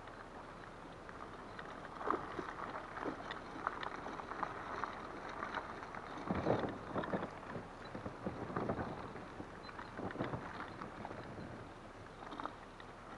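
Loaded fishing kayak on a wheeled launch trolley being rolled down a concrete slipway: the wheels rumble, and the rods and gear on board rattle and knock unevenly, loudest about six seconds in. Some wind buffets the microphone.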